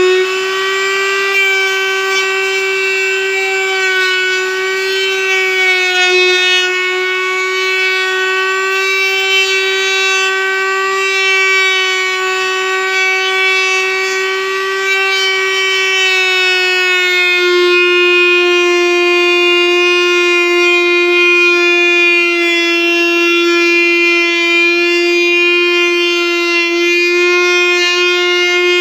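Table-mounted router cutter running at full speed with a steady high-pitched whine as a wooden strip is fed through it to cut cornice moulding. The pitch drops slightly a little past halfway.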